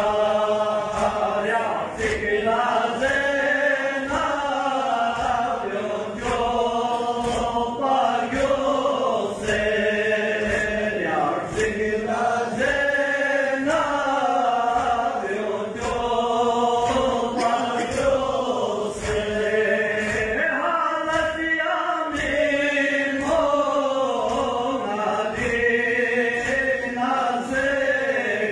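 A man chanting a Balti noha, a Shia lament, over a microphone in melodic phrases. Under it are steady low thumps about twice a second: the congregation's rhythmic chest-beating (matam).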